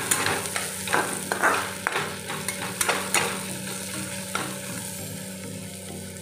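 Chopped onions and green chillies sizzling in hot oil in a kadai. A metal spatula stirs them and scrapes against the pan in irregular strokes, which thin out near the end. The onions are frying until lightly browned.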